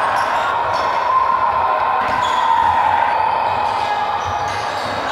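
Basketball in play on a wooden hall floor: the ball bouncing and players running, over the steady hubbub of the hall.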